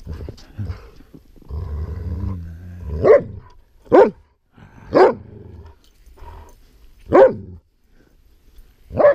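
A dog growling low, then barking sharply five times at close range, the first three about a second apart, then two more after a short gap.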